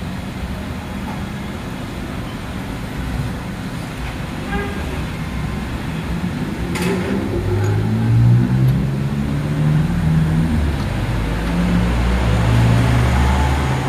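A motor vehicle engine running over steady background traffic noise, with a low drone that grows louder about halfway through.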